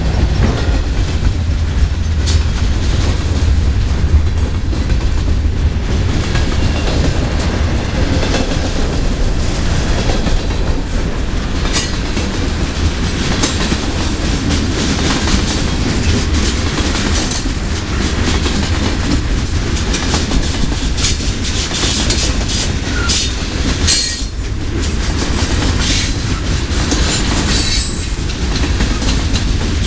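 Freight train cars rolling past close by: a steady low rumble with wheels clacking over the rail joints. Sharper metallic clanks come thickest in the second half.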